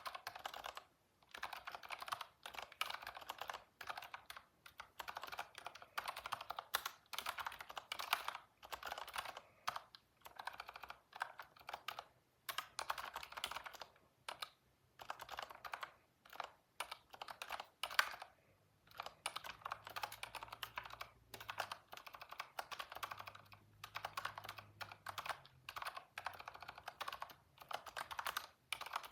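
Typing on a computer keyboard: quick runs of key clicks in bursts, broken by short pauses.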